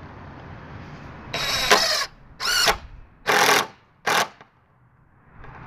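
Porter-Cable 20V cordless impact driver driving a 1½-inch wood screw through a 1x4 board in four short trigger bursts, starting about a second and a half in. The last burst is the shortest, as the screw seats.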